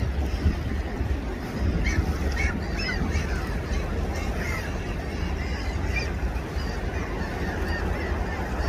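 Gulls calling in flight: a string of short, repeated cries, thickest in the first half, over a steady low rumble of wind on the microphone.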